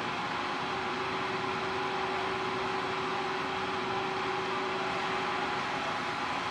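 Steady drone of a large car ferry underway: an even rushing noise with a steady machinery hum, one low hum tone dropping out about five and a half seconds in.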